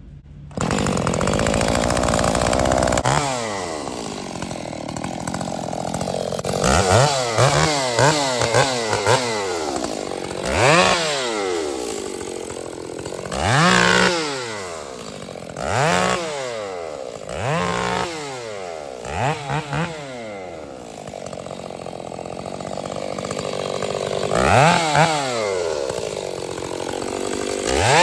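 Two-stroke chainsaw starting up about half a second in, running high for a couple of seconds, then revved again and again, its engine speed rising sharply and falling back every two to three seconds.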